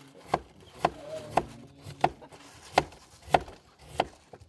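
Knife chopping food on a cutting board: sharp, evenly spaced knocks, a little under two a second.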